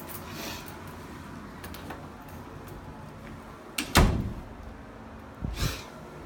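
An interior door is shut with a thud about four seconds in, followed by a second, softer thump.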